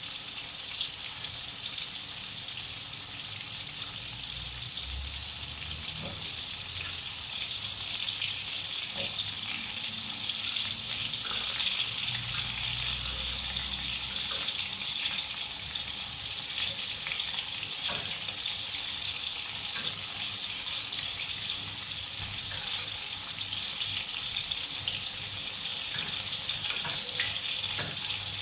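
Food frying in a pan with onions: a steady sizzle, with scattered small ticks and pops.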